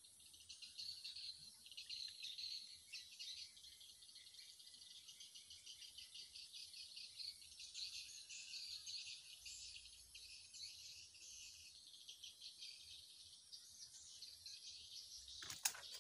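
Faint, steady chorus of insects chirping and trilling, with birds calling through it.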